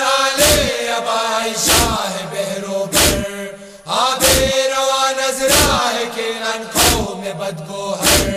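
A group of men chanting a Shia noha (mourning lament) in unison on long held notes, with a hard chest-beating (matam) thump about every 1.3 seconds.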